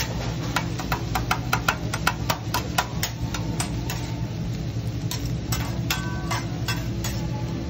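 Metal spatula and fork clacking rapidly against a hibachi flat-top griddle as fried rice and egg are chopped and mixed, several strikes a second at first, then sparser, with a few ringing metal clinks, over a steady low hum.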